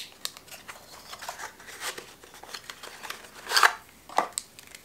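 Cardboard knife box and paper manual being handled: scattered light taps and rustles, with a louder rustle about three and a half seconds in and a shorter one just after.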